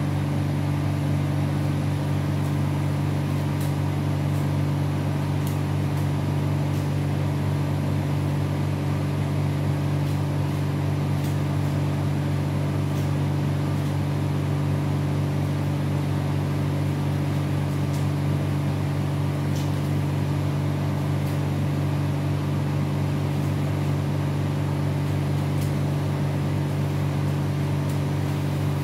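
Steady, unchanging mechanical hum of a wall-mounted cooling unit, its fan and motor running continuously.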